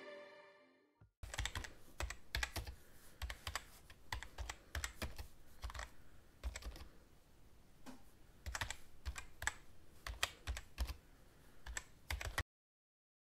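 Typing on a computer keyboard: a long run of quick, irregular key clicks that cuts off abruptly near the end.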